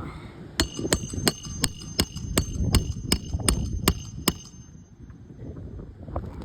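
About a dozen ringing metal hammer strikes, roughly three a second, stopping about two-thirds of the way through; they fit hammering during an asphalt shingle repair. Wind rumbles on the microphone.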